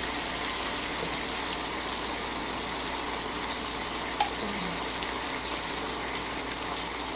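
Ground beef and its fat sizzling steadily on a George Foreman grill plate, with a faint click about four seconds in.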